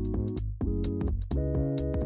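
Background music: an upbeat electronic track with held synth chords that change about every half second over a steady drum beat.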